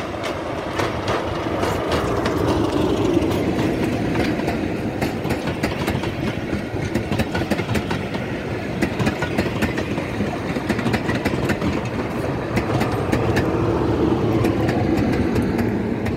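British Rail Class 33 diesel-electric locomotive hauling a passenger train past at speed, its engine working as it goes by about two to three seconds in. Its coaches follow with a steady clatter of wheels over rail joints. The sound swells again near the end as a second locomotive at the rear passes.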